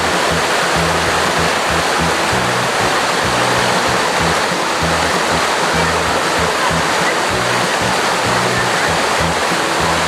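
Waterfall and the shallow rocky stream below it rushing and splashing, a loud, steady rush of water.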